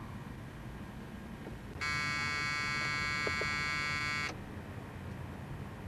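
A steady electric buzzing tone sounds for about two and a half seconds, starting about two seconds in and cutting off sharply, over a low steady rumble.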